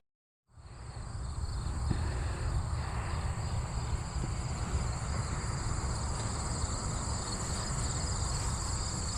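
A steady chorus of insects chirring in high bands, fading in after a half-second gap, with a low rumble underneath.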